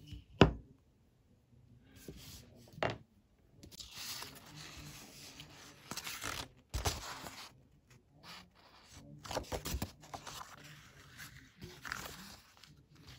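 A sharp knock about half a second in, as the wooden strop board is set down on its black grooved base. Later, rustling and scraping as a large stiff grey sheet is handled and slid over the board.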